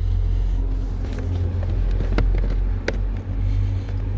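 A steady low rumble with three sharp clicks, as the plastic cover of the cabin-filter housing is twisted open.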